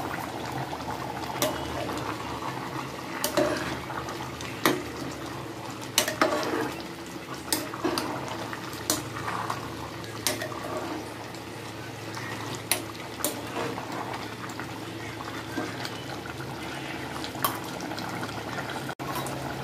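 A thick salan of cluster beans, potatoes and mutton bubbling and boiling in an open aluminium pressure cooker, with a ladle stirring it. Sharp pops and knocks come every second or two over the steady bubbling.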